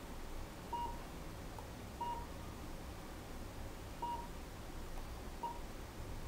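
Touch-screen key beeps from an aftermarket Chevrolet Malibu DVD navigation head unit as its menu icons are tapped with a stylus: four short, faint beeps one to two seconds apart, over a low hum.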